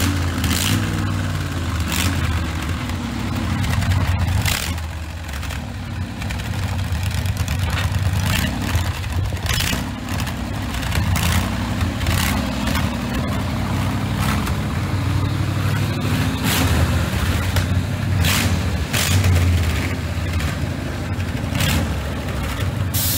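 Rat-rod pickup's engine running loud through open, unmuffled header pipes, its pitch rising and falling with the throttle, with sharp cracks every few seconds.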